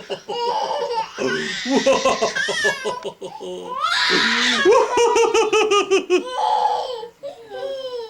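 Young child laughing hard in repeated bouts, with a quick run of 'ha-ha-ha' pulses in the middle.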